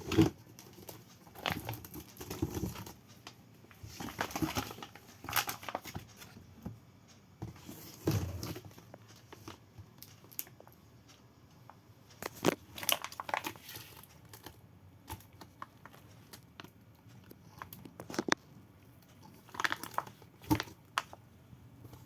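Packaging being handled: crinkling and tearing in irregular, short bursts with scattered clicks and knocks.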